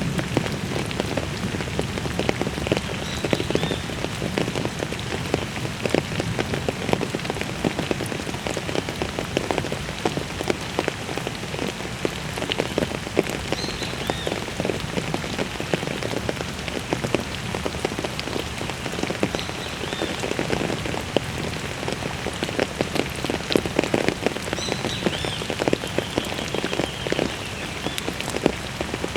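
Heavy rain falling in a thunderstorm: a dense, steady patter of drops striking hard surfaces.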